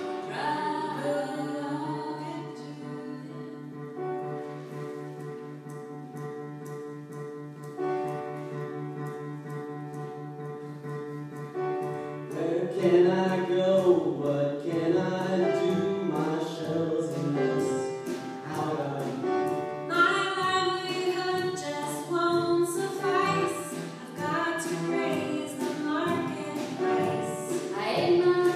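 Music: a group of voices singing, over a steady low drone in the first part, with a light regular ticking; the singing grows louder about twelve seconds in.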